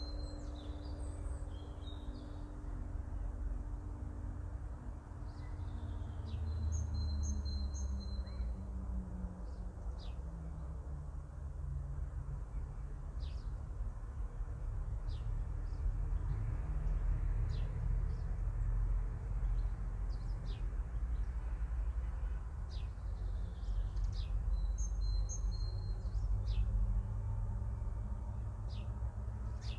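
Orthodox church bells ringing out and dying away in the first few seconds with no new strikes. After that come small birds chirping in short calls every second or two, over a steady low rumble.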